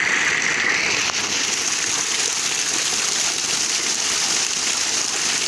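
Water gushing steadily from a running tubewell's outlet pipe and splashing onto the ground.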